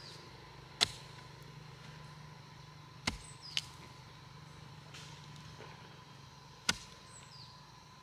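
Four sharp knocks, irregularly spaced, the first about a second in and the last near the end, over a faint steady low hum, with a few faint high falling chirps.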